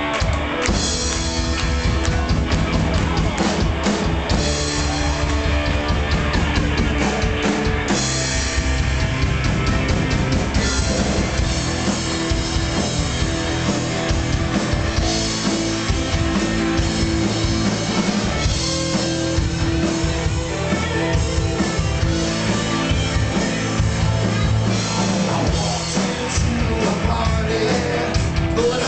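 Live rock band playing amplified electric guitar over a drum kit, loud and steady.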